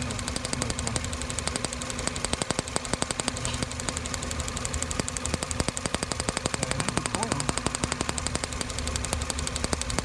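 An in-line spark tester on a plug wire snaps in a rapid, steady train as the ignition coil fires through it, over a Toyota engine running. It is a spark test of the DIS ignition, checking whether the coil is weak.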